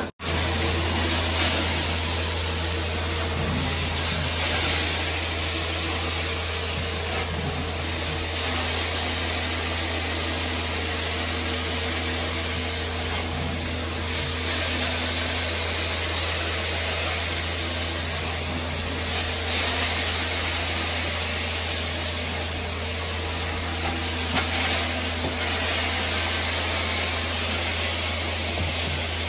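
Hot-water carpet extraction wand spraying and vacuuming across carpet tiles: a steady rushing hiss of suction and spray over a constant low hum from the extractor.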